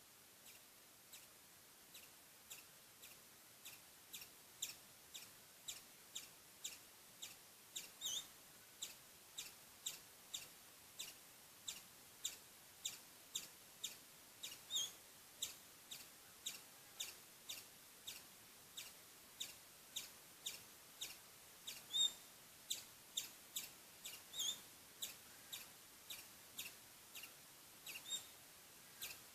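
Squirrel calling in a steady run of short, high chirps, about two a second, faint at first and growing louder over the first few seconds. A few longer calls that bend in pitch come every several seconds.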